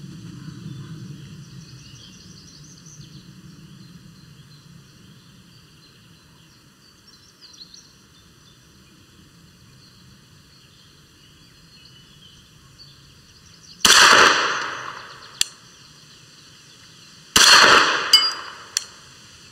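Two shots from a Chiappa M9 .22 LR pistol, about three and a half seconds apart, each followed by a short echoing tail.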